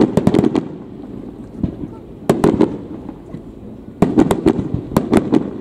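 Aerial firework shells bursting in the sky: three volleys of sharp bangs and crackles, at the start, about two seconds in, and from about four seconds in.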